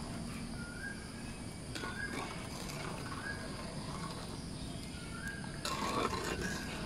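Steel pot of agar-agar and sugar syrup at a boil being stirred with a metal spoon: steady bubbling with spoon stirring, and a knock about two thirds of the way through after which it gets a little louder. A short rising chirp repeats about once a second over it.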